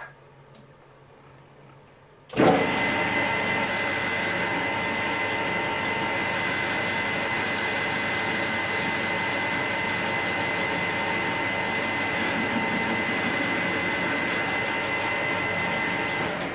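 Metal lathe starting about two seconds in, then running steadily with a constant whine while the cutting tool takes a facing cut across a small metal cylinder end cap, chips flying; the lathe stops just at the end.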